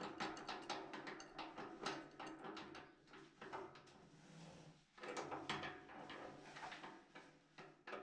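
Adjustable spanner working the compression nut on a radiator valve fitting: a run of small metal clicks and knocks as the jaws are set and the nut is turned, quieter for a moment midway.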